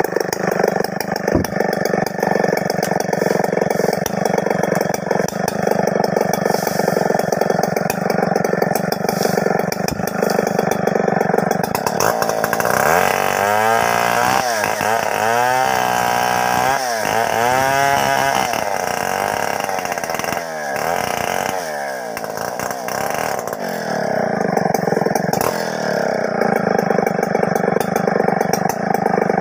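Two-stroke chainsaw running hard while cutting into a log. About halfway through, its engine note wavers up and down for several seconds, then it settles back to a steady note near the end.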